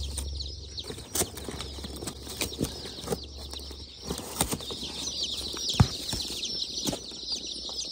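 A large batch of day-old chicks peeping nonstop in their shipping boxes, many short high falling peeps overlapping. Sharp knocks and clicks sound here and there, and a low hum fades away in the first second.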